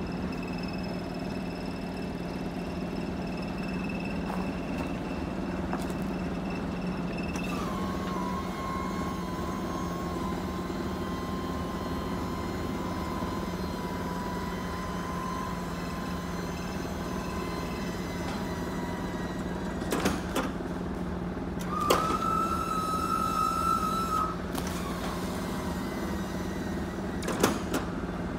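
Truck's diesel engine idling with a steady low hum, under a faint thin whine. Sharp knocks come about two-thirds of the way through and again near the end, and a louder high whistling tone sounds for about two seconds in between.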